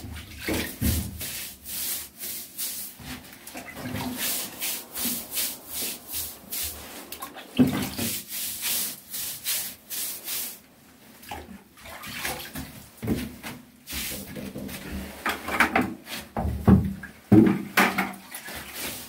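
A brush scrubbing wet cement waterproofing slurry onto a rough brick and plaster wall in quick, repeated rubbing strokes. There are louder scrapes and knocks near the end.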